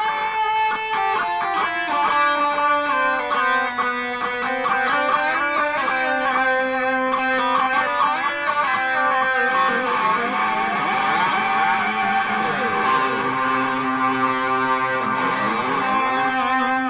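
Electric guitar played through an effects pedal: a stream of quickly picked notes, then bending notes gliding up and down in pitch over the second half.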